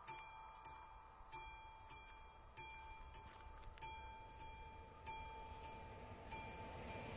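Level-crossing warning bell of an AŽD 71 signal, a classic struck bell, ringing with a little under two strikes a second, each strike ringing on: the warning that a train is approaching. Near the end the approaching train's rumble begins to rise under it.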